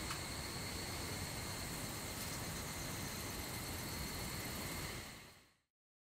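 Steady insect chirping, a continuous high trill over background hiss, that fades out to silence about five seconds in.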